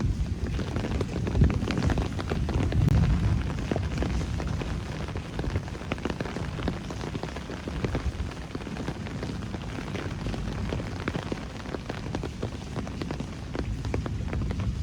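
Steady rain falling on city streets, windows and roofs, many separate drops and drips striking sharply over a continuous hiss, with a low rumble underneath.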